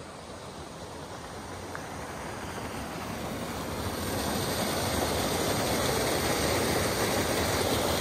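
A small waterfall in a mountain stream rushing down into a pool. The water noise grows steadily louder over the first half, then holds steady.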